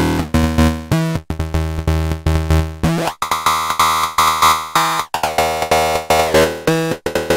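Modular synthesizer voice played through a Noise Reap Anomaly filter (a VCF combined with a wavefolder) while its knob is turned, shifting the tone's harmonics. A run of short repeating notes gives way to a held, brighter and buzzier note about three seconds in, then the short notes return.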